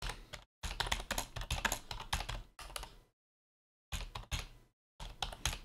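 Typing on a computer keyboard: quick runs of keystrokes for about three seconds, a pause of nearly a second, then two shorter bursts of keys.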